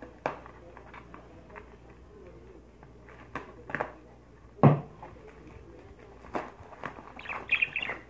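A mailed package being handled and opened by hand: scattered clicks and knocks, one loud thump a little past halfway, and a squeaky, scratchy stretch near the end.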